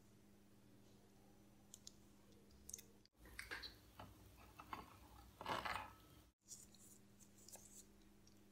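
A few faint clicks of metal tweezers in a plastic parts tray. After a cut about three seconds in comes a louder clatter of small hand tools being drawn from a wooden tool stand, loudest just before the next cut. A low steady hum sits underneath throughout.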